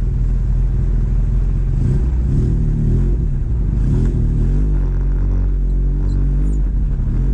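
ATV engine running steadily near idle, with a few brief light revs.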